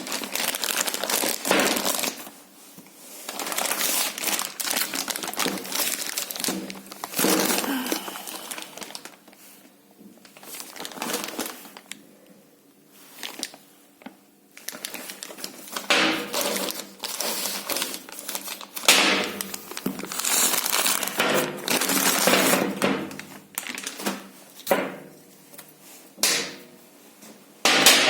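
Packaging crinkling and rustling as it is handled, in irregular bursts with a quieter stretch midway.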